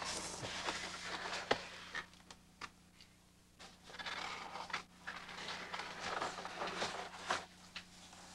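Rustling and scraping in three short spells, with a few sharp clicks, the strongest about one and a half seconds in, over a faint steady hum.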